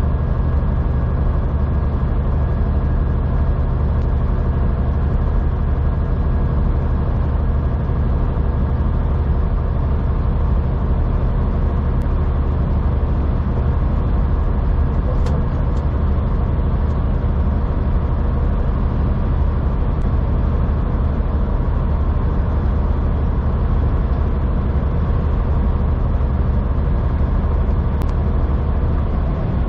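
Semi truck's diesel engine running steadily under load as it climbs a highway grade, heard inside the cab as a constant low drone with road noise.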